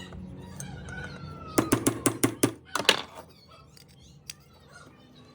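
A quick run of about seven sharp knocks over a second and a half, starting about one and a half seconds in.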